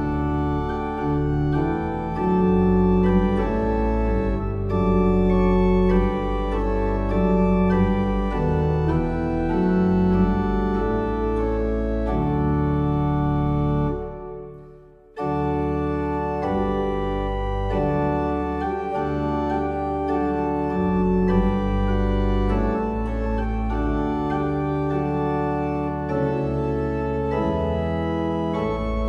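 Instrumental music of long held, organ-like chords. It fades out about halfway through, and music starts again abruptly about a second later.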